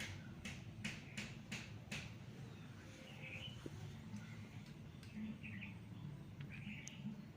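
Short, sharp strokes from hand work on table fan parts, about two to three a second, stopping about two seconds in. Faint bird chirps follow a few times in the background over a low steady hum.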